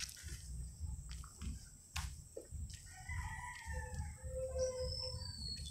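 A rooster crowing, one drawn-out call from about three seconds in. A few short, high bird chirps come near the end, over a low, uneven rumble.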